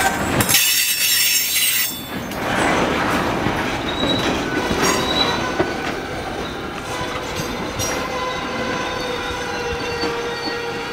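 Loaded limestone-slurry tank cars rolling slowly over yard track, their wheels squealing against the rails in thin, high, held tones over the rolling noise, with a sharper squeal about half a second to two seconds in and occasional knocks.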